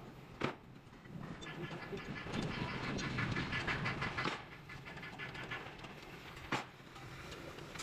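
Steady mechanical rattling and rumbling that swells for a couple of seconds in the middle, with two sharp knocks, one just after the start and one near the end.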